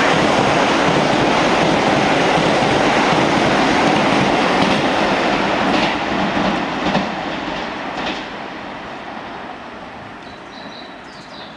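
Keisei electric commuter train passing through the station at speed: a steady rumble with the wheels clacking over the rail joints. Near the middle the last few joint clacks come through, and then the sound fades as the train moves away.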